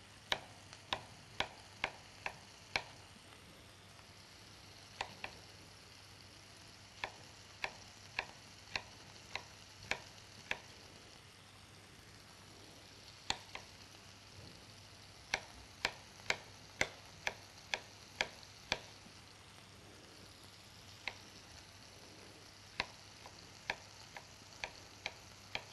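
Knife dicing a carrot on a cutting board: sharp chops about two a second in runs of several, with short pauses between the runs.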